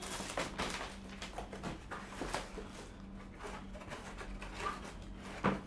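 Handling noise from a Focusrite Scarlett 18i20 rack-mount audio interface being picked up and moved about: scattered light clicks, taps and rustles, with a sharper knock near the end, over a faint steady low hum.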